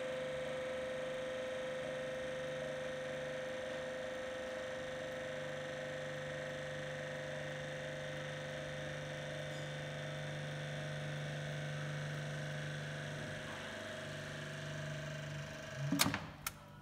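Haagen & Rinau Unimix S KU4 universal mixer running with a steady electric-drive hum and whine. Near the end there is a short clatter of knocks, and then the running sound stops.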